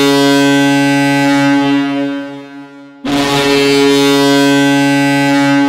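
Boston Bruins arena goal horn sounding in long, steady, deep blasts, signalling a home goal: the first blast dies away about two seconds in, and a second begins about three seconds in and holds to the end.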